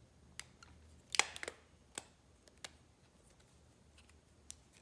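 A few faint clicks and snaps of hands handling a small rotary tattoo machine and pulling a rubber band off it, the loudest quick cluster about a second in, then single clicks.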